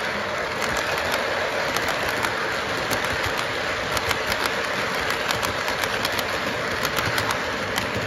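Lionel model train freight cars rolling past on the track: a steady rumbling clatter of metal wheels, with quick irregular clicks.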